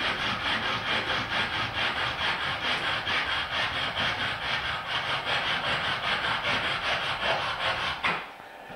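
Bow saw cutting through a dead branch with quick, even back-and-forth strokes, stopping about eight seconds in.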